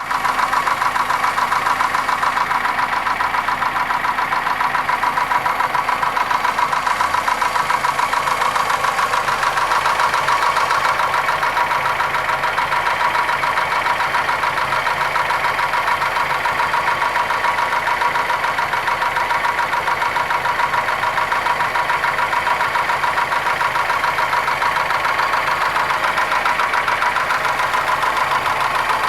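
Opel Astra's 1.6 X16SZR petrol four-cylinder engine running at a steady speed with a fast, even knock or tap in time with the engine. The cause of the knock is unknown to the owner.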